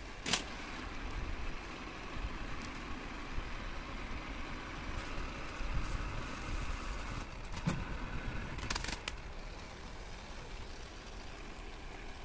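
Cylinder boring machine running steadily while boring out a cylinder of a Tata Ace engine block, with a few sharp metal knocks.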